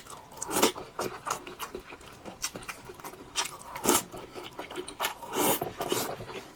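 A person eating noodles close to the microphone: wet mouth clicks and chewing, with several longer slurps, the loudest about four and five and a half seconds in.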